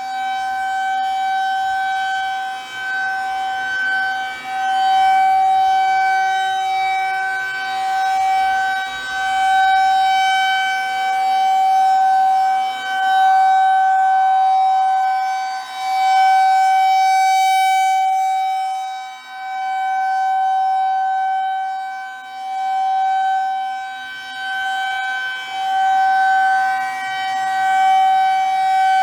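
Federal Signal 2001 rotating outdoor warning siren sounding a steady single-pitch tone. It swells and fades every few seconds as the turning horn sweeps past.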